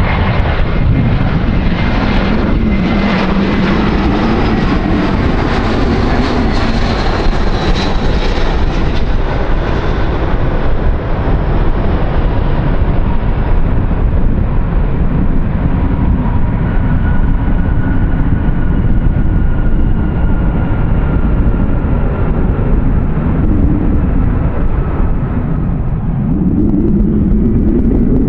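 Jet airliner engines passing close by: a loud, continuous rumble with a high whine that peaks about six to eight seconds in, after which the whine slides slowly lower and fades while the low rumble carries on.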